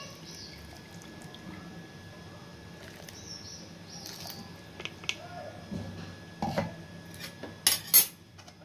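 Water poured into a kadhai of onion-tomato gravy and stirred with a metal spoon. The spoon knocks against the pan a few times in the second half, loudest as a quick pair near the end.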